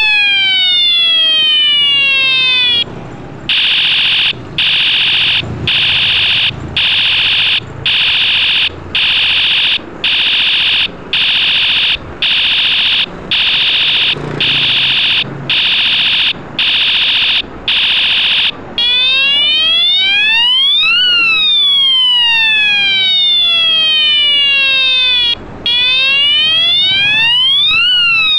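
Battery-powered police-style bicycle siren on the handlebar, running through its tones: a falling sweep, then a harsh beeping tone about once a second for some fifteen seconds, then a slow wail that rises and falls.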